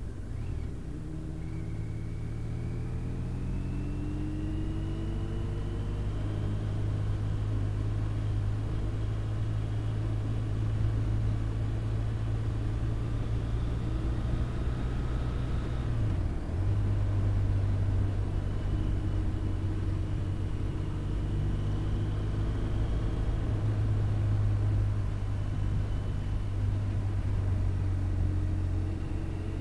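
Touring motorcycle engine running under way, with wind rumble on the bike-mounted microphone. The engine note climbs as the bike accelerates over the first several seconds. About sixteen seconds in it breaks and drops briefly, as at a gear change, then runs steadily.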